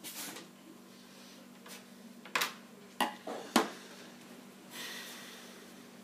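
Hands handling wiring and metal parts at a compressor fridge's cooling unit: four sharp metallic clicks and knocks in the middle, the last one the loudest, then a brief rustle, over a faint steady hum.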